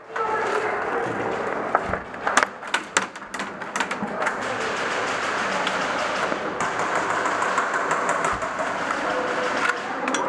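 Indoor airsoft game: a run of sharp snaps from airsoft shots and BB hits between about two and four seconds in, over a steady background of distant voices and gunfire.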